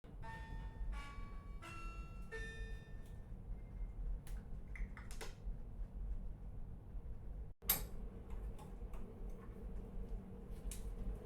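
Ship interior ambience: a steady low machinery hum with metallic clinks and ticks. The first few clinks ring with a pitch, like loose metal fittings knocking as the vessel moves. About two-thirds through the sound drops out for an instant, and a sharp click follows.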